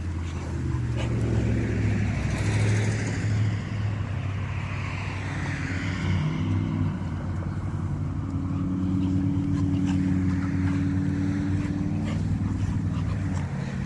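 A motor vehicle's engine running steadily, its pitch stepping up a little about seven seconds in. For the first several seconds a rushing noise swells and fades over it.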